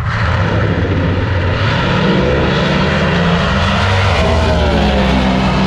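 No-prep drag race cars under full throttle, a loud engine noise that starts suddenly and holds, falling in pitch near the end.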